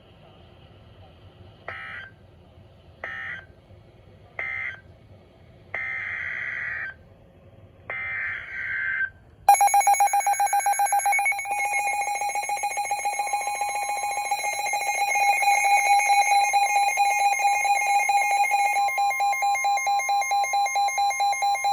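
NOAA Weather Radio alert signalling: several short digital data bursts that sound as harsh electronic screeches, then, about halfway through, a weather alert radio receiver's loud, rapidly pulsing alarm sounding for the incoming warning.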